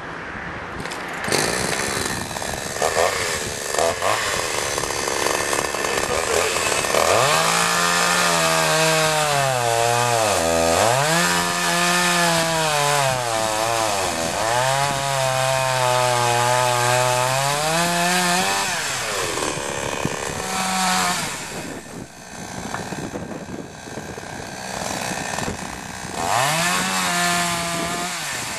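AMA BG45-18 chainsaw's 45cc two-stroke petrol engine running at high revs while cutting wood; its pitch sags twice as the chain bites into the log and recovers each time. Near the middle it drops back toward idle, with two short revs later on.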